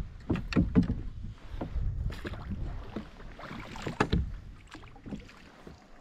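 Water splashing and slapping irregularly against a small boat's hull as it moves slowly through the water, with scattered knocks and no engine running.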